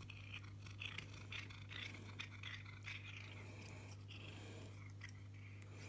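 Cat chewing and biting on a meat cat-stick treat: faint, irregular wet mouth clicks and smacks, over a low steady hum.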